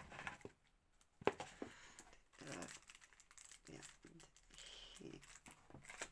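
Paper packaging crinkling and rustling as it is handled, with a sharp tap a little over a second in.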